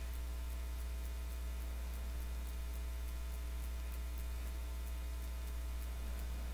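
Steady electrical mains hum with a stack of overtones, with a faint regular ticking over it; no sound from the fight itself is heard.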